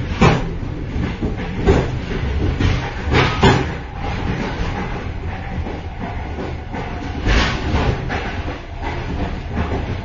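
Inside the vestibule of a moving train: a steady low rumble from the running gear, broken by irregular sharp metallic clanks and rattles, with clusters of them about one and a half, three and a half and seven and a half seconds in.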